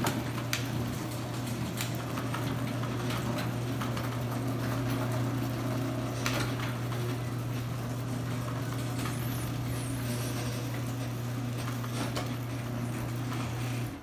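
Chain-drive garage door opener running as it closes the door: a steady motor hum with the chain and door clicking and rattling, cutting off just before the end.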